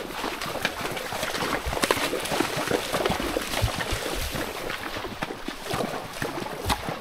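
Water splashing and gurgling, thick with small irregular splashes and clicks.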